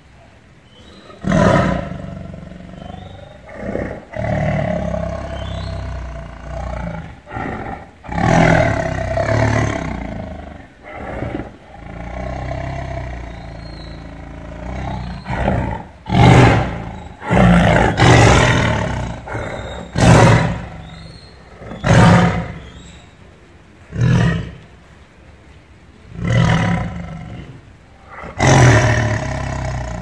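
Tiger growling and roaring: long, rumbling growls through the first half, then a run of short, loud roars about every one to two seconds in the second half.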